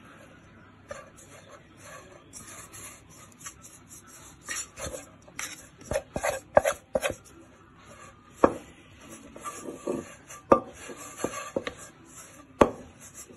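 Wooden chopsticks stirring and scraping a soft, wet flour dough around a mixing bowl, with irregular sharp knocks of the chopsticks against the bowl's side, the loudest in a quick cluster about six seconds in.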